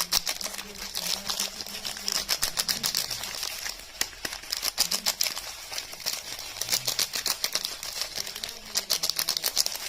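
Dense, rapid crackling and clicking from soap and its packaging being handled by hand for ASMR.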